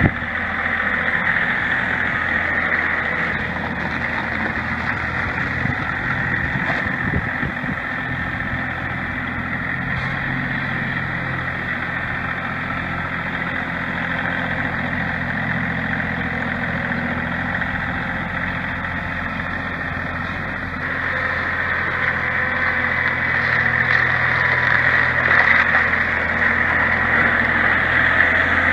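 New Holland compact tractor with front-end loader, its engine running at a steady speed as it drives slowly; the sound grows somewhat louder over the last several seconds.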